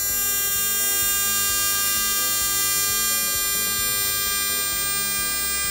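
AC TIG welding arc on aluminum tubing, a steady high-pitched buzz as the seat-tube joint is welded fully with filler rod.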